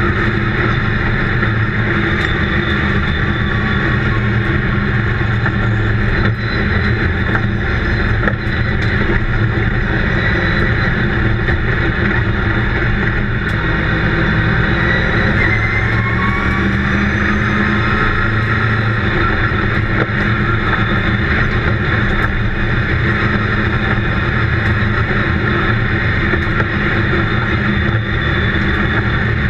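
Stock car's engine running at a steady pace, heard from inside the cockpit as a loud, even drone with rumble from the chassis and track.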